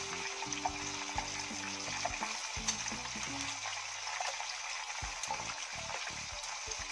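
Bacon-wrapped scallops frying in hot oil in a pan: a steady sizzle with scattered crackling pops of spitting fat.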